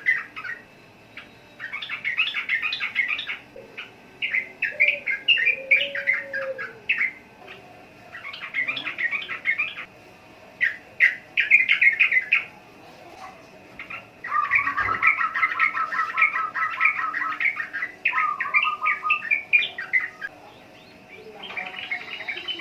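Yellow-vented bulbul (trucukan) singing: bursts of quick, bubbling, chattering notes, each lasting one to three seconds with short pauses between. The longest run, about two-thirds of the way through, includes a fast trill.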